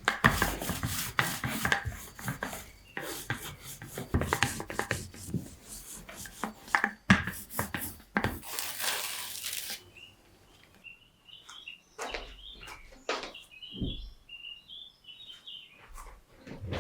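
Rapid, irregular rubbing and scraping strokes for about ten seconds, with a steady hiss near the end of that stretch. Then it goes quieter, with birds chirping softly and a few light knocks.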